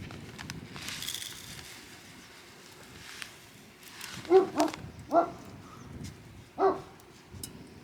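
A dog barking: four short barks, three close together about halfway through and one more about a second and a half later.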